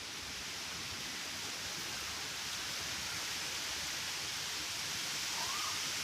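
Outdoor ambience by a paddy field: a steady, even hiss that grows slightly louder, with a short rising-and-falling chirp near the end.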